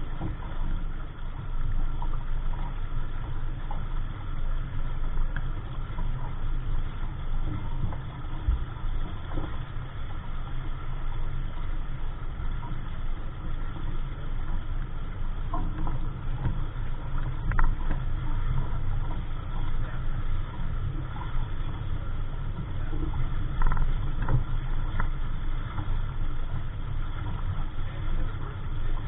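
Wind buffeting the microphone aboard a small sailing dinghy: a steady, fluttering low rumble, with a few faint clicks and knocks.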